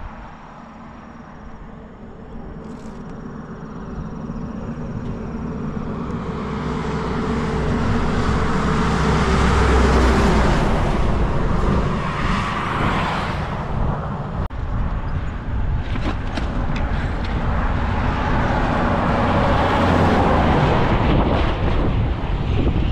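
Motor vehicles passing close by on the highway: engine and road noise grow steadily louder to a peak about ten seconds in, and a second vehicle swells past near twenty seconds.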